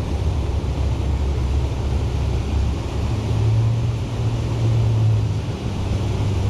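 Wind buffeting the microphone: a steady low rumble that swells slightly a few seconds in.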